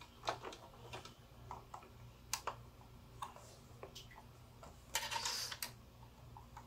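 Light, scattered clicks and taps of small metal and plastic parts being handled around the needle plate and presser foot of a Jaguar CD-2202W sewing machine as it is put back together after cleaning. A brief scraping rustle comes about five seconds in.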